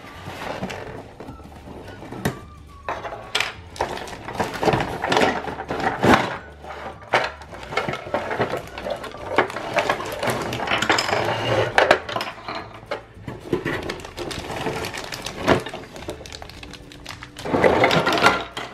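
A cardboard toy box being opened and hard plastic playset pieces and plastic bags being handled, with many short knocks, clicks and rustles.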